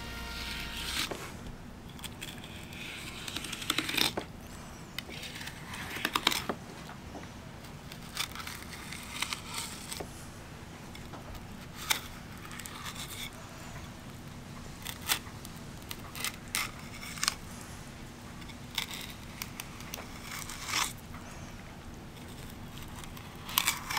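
Fillet knife slicing a pompano fillet off the backbone, with scattered crackling clicks and scrapes as the blade cuts through skin and flesh and rasps over the bones and the cutting board.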